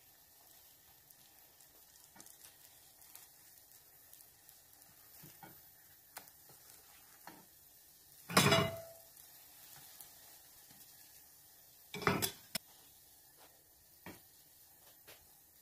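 Faint sizzling of egg-dipped bread frying in a nonstick pan, with small ticks from a silicone spatula working the food. Two short, louder clatters of the spatula against the pan come about eight and twelve seconds in.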